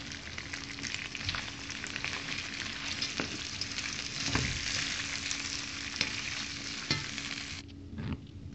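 Boneless chicken pieces and mixed vegetables (peas, corn, carrots) sizzling in hot oil in a wok over high heat, with a spatula stirring and knocking against the pan now and then. The sizzle drops away sharply about a second before the end.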